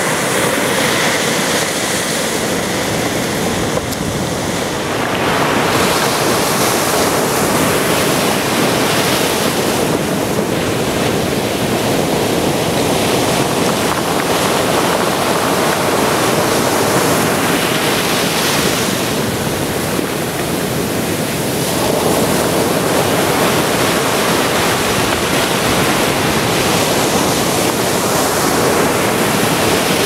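Ocean surf breaking and washing up a sandy beach: a continuous loud rush that swells every few seconds as each wave breaks.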